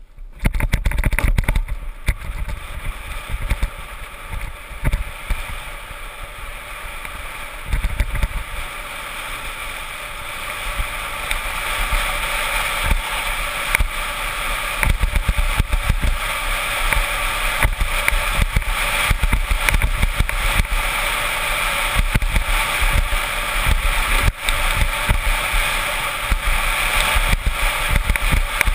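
Wind rushing over a camera mounted on an engineless soapbox racer, with its wheels rolling and rattling on asphalt as it coasts downhill. The noise grows louder over the first ten seconds or so as the cart picks up speed, with low buffeting throughout.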